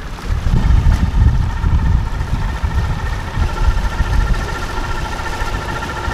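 Oxe Diesel K 150 HP diesel outboard, a four-cylinder inline engine, running steadily with the boat under way: a steady tone over a low rumble, with wind buffeting the microphone.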